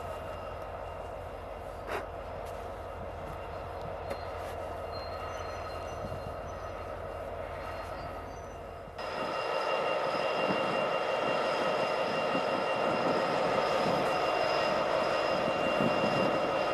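Diesel freight train led by Illinois Central locomotive 1035 running past with a string of tank cars: steady engine and wheel-on-rail noise. About nine seconds in the sound jumps suddenly louder and closer, with steady high tones over the rumble of the passing cars.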